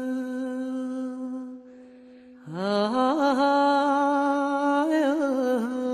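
Chaoui song: a single voice holds a long, steady note, breaks off just after a second and a half, then slides up from low into another long held note with small turns around it.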